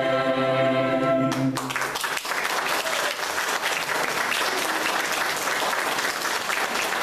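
Mixed choir holding a final sung chord that stops about a second and a half in, followed by steady audience applause.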